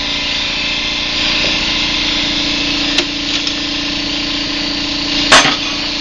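Steady mechanical hum in the workshop, with a light tap about halfway and one loud sharp knock near the end as the torn-down engine is worked on.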